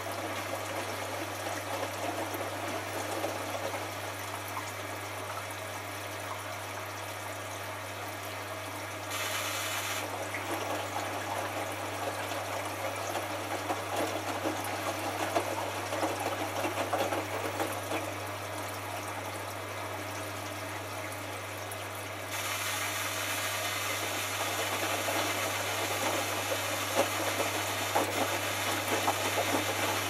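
Hotpoint HF8B593 front-loading washing machine tumbling wet laundry during its final rinse, the drum turning and water sloshing over a steady low hum. About two-thirds of the way through, a louder steady hiss of water starts and holds, as water runs into the drum.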